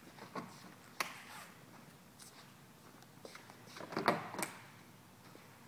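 Sharp clicks and knocks as a plastic front lip spoiler is pressed back onto a car's bumper and its push-button mini latches snap onto their studs. One click comes about a second in, then a louder cluster around four seconds in.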